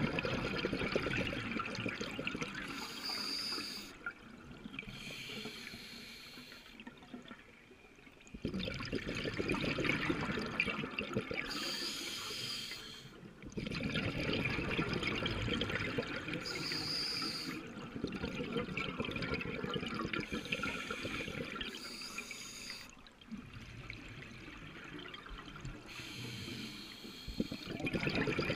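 Scuba diver breathing through a regulator underwater: long stretches of bubbling exhaled air alternate with shorter hissing inhalations, a breath every few seconds.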